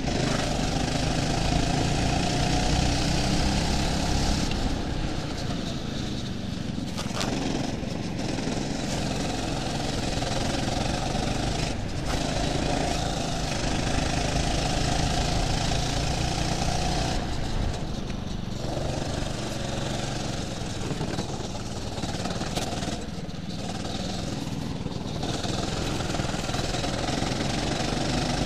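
Go-kart engine running under load, heard from on board the kart, its sound easing off for a second or two several times, as when lifting off the throttle for corners.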